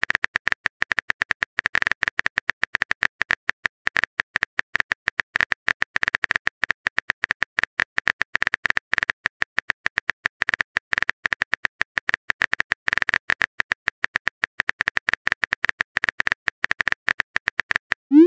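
Simulated phone keyboard typing clicks from a texting-story app, a fast, irregular run of short ticks, one for each character typed into the message box.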